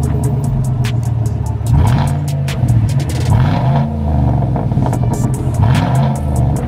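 Electronic background music with a steady drum beat and heavy bass.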